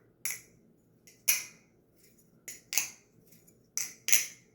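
LDY Sirius V4.5 balisong being flipped: its handles clack against each other and the blade in sharp metallic clicks, mostly in pairs about a third of a second apart, repeating about every second and a quarter.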